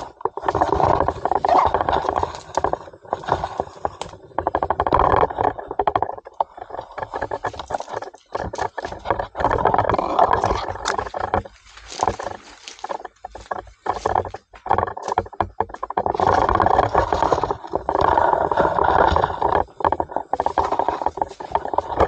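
Rubbing and scraping noise from a handheld 360 camera being carried along a bush trail, with irregular knocks and clicks. It comes and goes in uneven bursts rather than holding steady.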